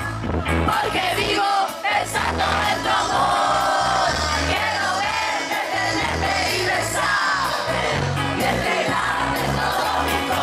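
Band music with a singing voice over a pulsing bass line.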